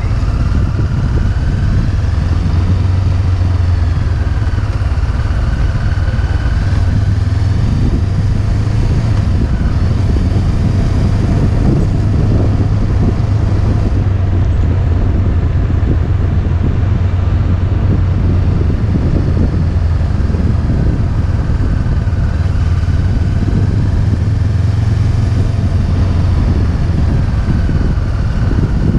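Motorcycle engine running steadily while riding, with a higher whine that rises and falls a few times as the revs change, over steady wind and road noise.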